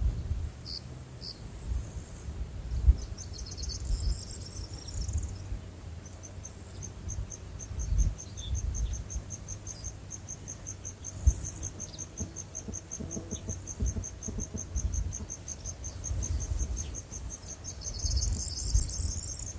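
Insects chirping: a steady high-pitched chirp repeating about five times a second, with faster trills from another insect early on and near the end. An uneven low rumble runs underneath.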